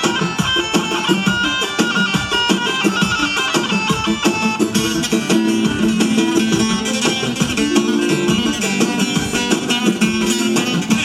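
Kurdish wedding dance music: a fast-changing melody over a steady, driving beat.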